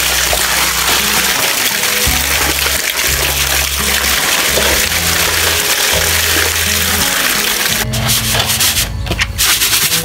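Background music with a stepping bass line over a steady rushing hiss; the hiss breaks up and thins about eight seconds in.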